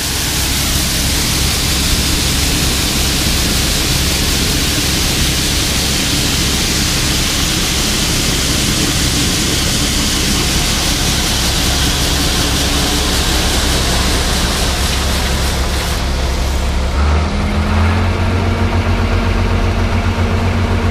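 Soybeans pouring from a combine's unloading auger into a grain wagon: a steady rushing hiss over the low, even drone of the combine's engine. About 17 s in the hiss drops away and the New Holland TR70 combine's engine running is heard more plainly.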